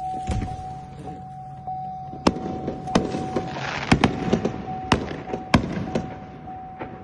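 Fireworks going off: a series of sharp bangs with crackling in between, over a steady high-pitched tone.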